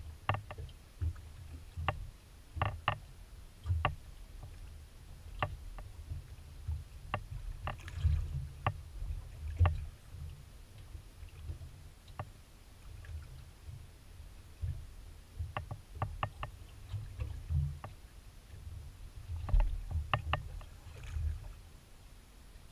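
Small aluminium boat on a light chop: a low rumble of water against the hull, with scattered sharp knocks and clicks that come in quick clusters at times.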